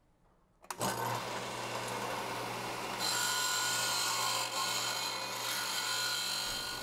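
Disc sander grinding the corners off a small aluminum bar to round them, over the steady hum of its motor. The sound starts suddenly under a second in, and the grinding grows harsher about three seconds in.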